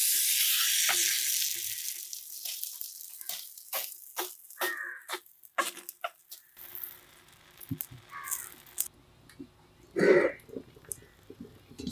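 Food sizzling in a hot pan, starting loud and dying away over about two seconds, followed by scattered light clicks and knocks of cooking utensils.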